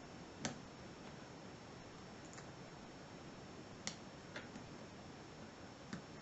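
Lock pick and tension wrench clicking in a 5-pin CISA oval pin-tumbler cylinder during single pin picking: a handful of sharp separate clicks, the loudest about half a second in, others near four and six seconds, over steady hiss.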